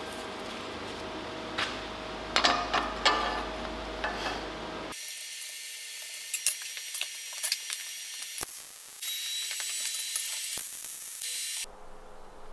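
Metal clinks and irregular clicking of hand tools as a steel bracket is bolted onto a motorbike frame and engine. There is a cluster of sharp clicks about two to three seconds in, then scattered ticks over a thin, hissy background.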